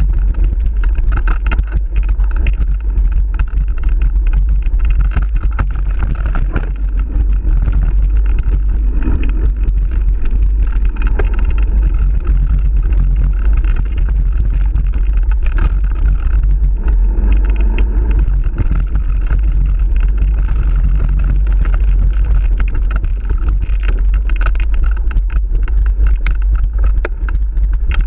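Mountain bike ridden fast on a dirt trail: heavy wind rumble on the microphone, tyres on dirt and a steady stream of rattles and knocks from the bike over the bumps.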